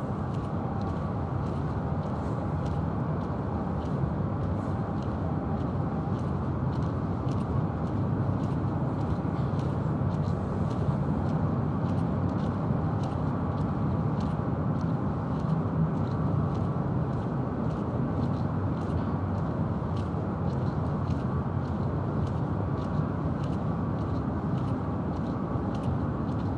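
Steady outdoor harbour-side rumble with no clear tone, and many faint irregular ticks scattered throughout.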